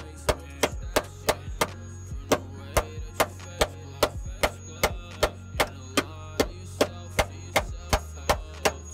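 Claw hammer beating the rusty steel lip of a car's wheel arch, a sharp blow about three times a second, over a steady low hum.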